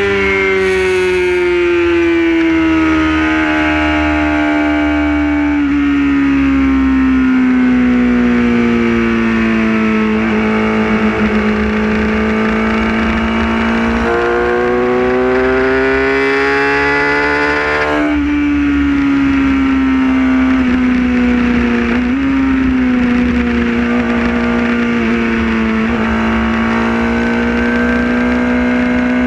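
Motorcycle engine heard from on board while riding, a steady tone whose pitch sinks slowly, then climbs and sinks again as road speed changes, with a few small steps in pitch. Low wind rumble on the microphone runs underneath.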